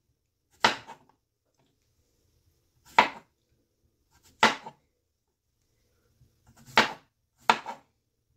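A kitchen knife slicing thin rounds off a yellow squash and hitting the cutting board: five sharp chops, unevenly spaced.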